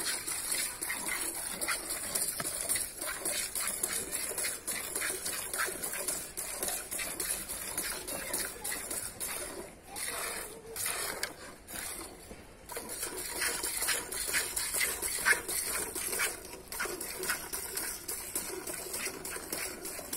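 Cow being milked by hand, jets of milk squirting one after another into a metal bucket in a steady rhythm.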